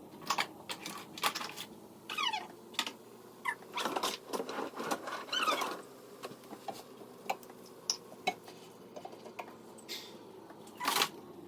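Clattering and knocking of kitchen drawers and utensils being rummaged through, a string of sharp irregular clicks and knocks with a few short squeaky sounds.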